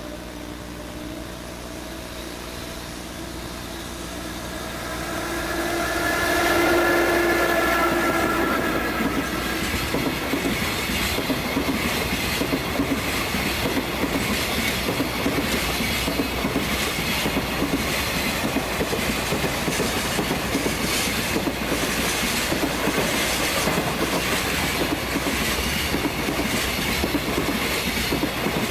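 Freight train led by a JR Freight EF66 0-series electric locomotive approaching and passing, loudest about seven seconds in. A long line of container wagons follows, rolling by with a steady clickety-clack of wheels over rail joints.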